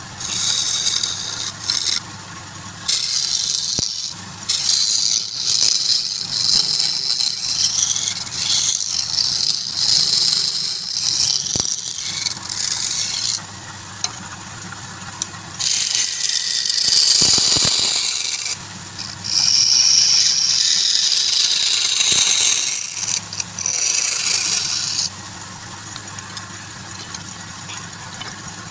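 A wood lathe runs with a steady hum while a turning tool cuts the spinning wood in several long passes with short breaks between them. The cutting stops about 25 seconds in, and the lathe keeps running.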